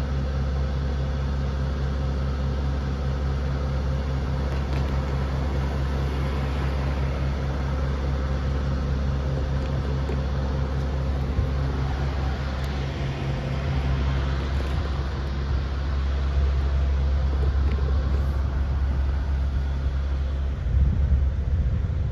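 A steady, low engine drone that shifts a little about midway, with irregular low rumbles near the end.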